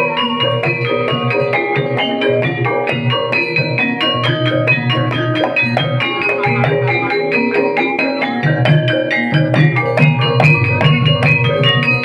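Banyumas gamelan music for an ebeg trance dance: mallet-struck keyed instruments play a fast, busy interlocking melody over a steady drum beat.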